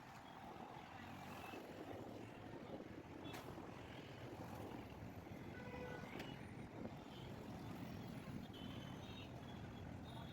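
Road traffic noise: a steady rumble of vehicles, with a few faint, brief high tones in the second half.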